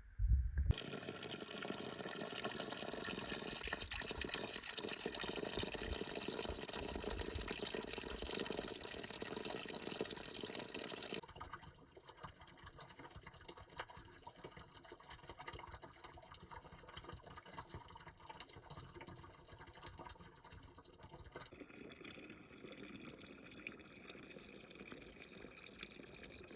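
Water running and pouring with a steady splashing hiss. It drops abruptly quieter and duller about 11 seconds in and brightens again about 21 seconds in.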